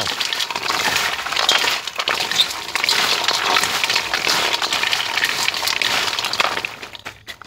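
Dried, chopped medicinal herbs (milkwood bark pieces and woody herb stems) being stirred and tossed together, a steady dry rattling and crackling of many hard pieces that stops near the end.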